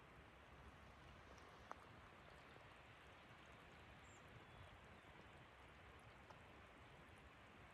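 Near silence: a faint steady hiss, with one small click about two seconds in.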